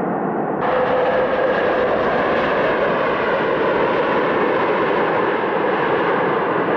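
Airliner jet engines running, a loud steady rushing noise with no rhythm. About half a second in it changes abruptly and grows brighter.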